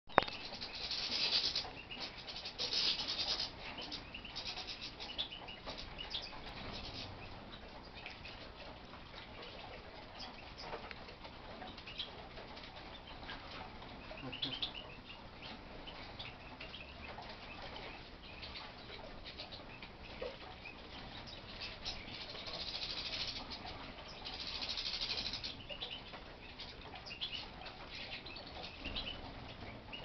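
Small finches bathing in a shallow tray of water: splashy flurries of fluttering wings, two near the start and two more later on, with scattered short chirps and ticks in between.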